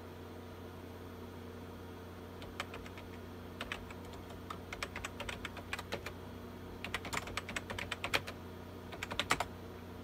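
Computer keyboard keys typed in short, irregular runs as DOS commands are entered, starting a couple of seconds in, over a steady low hum.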